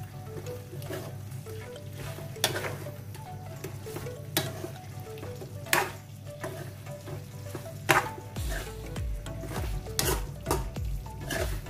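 A metal spoon stirs chicken wings through a thick sauce sizzling in a non-stick frying pan on a gas burner. Under a steady sizzle, the spoon scrapes and knocks against the pan about every one to two seconds.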